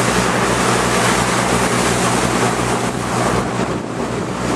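Motorboat engine running steadily under way, a low hum under the rush of water from the wake and wind on the microphone.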